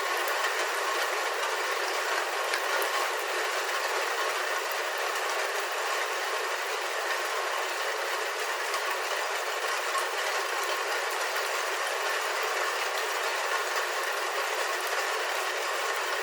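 Steady rain falling on a roof, heard from inside: an even, dense patter of drops with small sharp ticks scattered through it.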